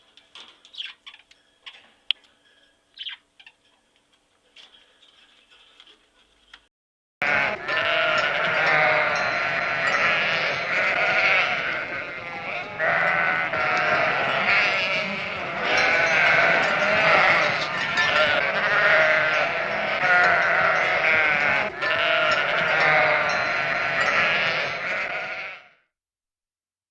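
Faint scattered clicks for several seconds, then a large flock of animals starts bleating all at once, many overlapping calls. The bleating stops abruptly near the end.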